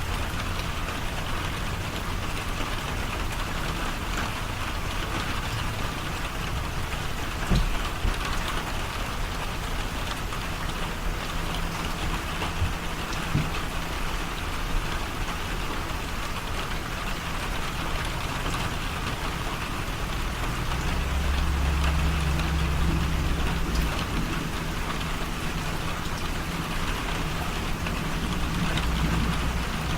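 Heavy rain pouring steadily, a constant hiss of rain on surfaces. A low rumble rises about two-thirds of the way through and again near the end.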